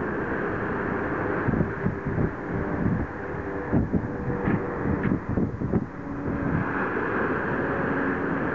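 Wind buffeting the camera's microphone, with a run of uneven gusty thumps in the middle, over a low steady hum.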